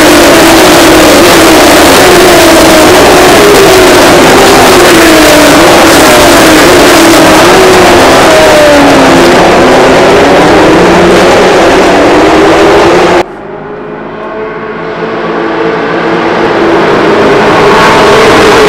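Super 6000 stock cars' V8 engines running together on the circuit, several engine notes overlapping and wavering in pitch. About thirteen seconds in, the sound cuts abruptly to a quieter one, then a car's engine grows steadily louder as it approaches.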